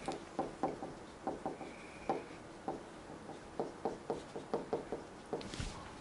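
Marker writing on a whiteboard: irregular short taps and scratchy strokes, with a brief faint squeak about two seconds in.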